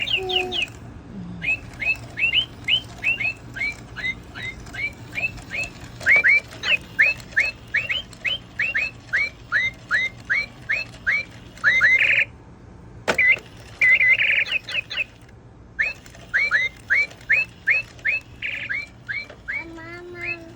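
Pet bird calling repeatedly: a long series of short, clear chirps that each sweep downward in pitch, about two a second, broken by a couple of brief pauses. A single sharp click comes about two-thirds of the way in.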